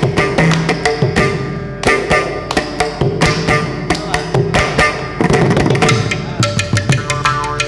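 Carnatic ensemble with no singing: the mridangam plays a fast, dense run of strokes, with other percussion and sustained pitched tones behind it.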